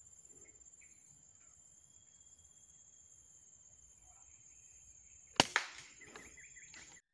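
Steady high drone of insects, then a single sharp crack of a Sharp Innova air rifle firing about five seconds in, followed at once by a second sharp report and a short rattle.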